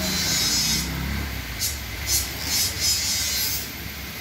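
Old upholstery fabric being ripped by hand from a wooden sofa frame: one longer rasping tear over the first second, then several short tearing pulls.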